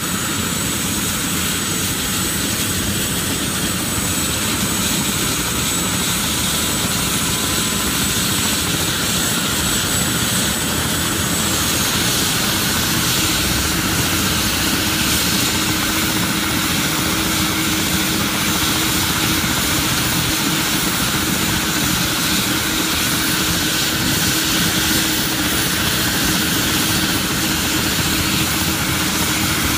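MBB/Kawasaki BK 117 twin-engined helicopter running on the ground with its main rotor turning, a steady turbine whine over the rotor noise. A high whine fades out a little before the middle, and a lower steady tone comes in about halfway.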